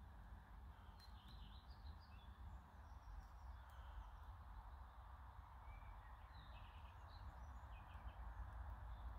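Faint chirps and calls of small birds at irregular intervals over a steady low outdoor background hiss and rumble.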